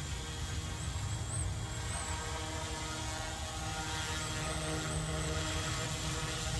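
Electric Yu Xiang F07 UH-1 Huey remote-control helicopter flying as it is brought in to land: a steady rotor and motor hum with a faint high whine that wavers in pitch.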